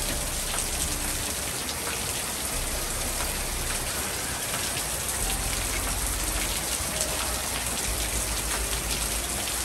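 Steady rain falling on the ground and pavement, with many small drop ticks throughout.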